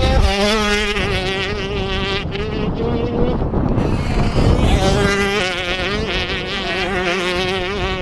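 Motocross dirt bike engines revving high with a buzzing, wavering pitch as the throttle is worked. The revs fall off about two seconds in and climb hard again a little after five seconds.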